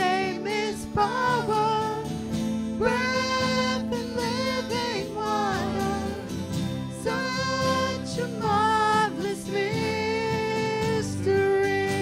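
A woman singing a worship song with a live band of keyboard, drums, acoustic guitar and electric bass, holding long notes.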